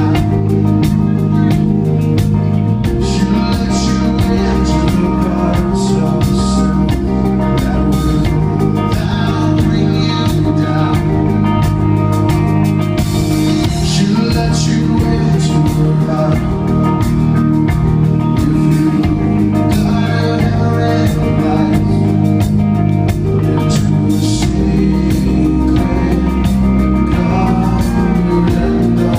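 Live rock band playing loudly and steadily, with electric guitar and a man singing, heard through a phone's microphone in the audience.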